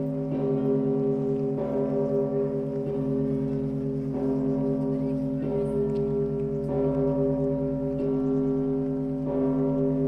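Russian Orthodox monastery bells ringing a peal: strikes come evenly, about one every 1.3 seconds, over the long, throbbing hum of a large bell.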